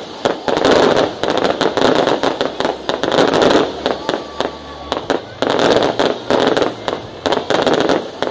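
Fireworks going off in rapid succession: heavy bursts about once a second, each thick with sharp cracks and crackling, with a short lull about halfway through.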